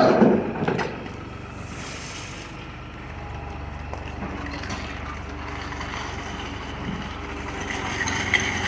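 Skid steer engine running: loud at first, dropping within the first second to a steady low hum, then growing louder again near the end.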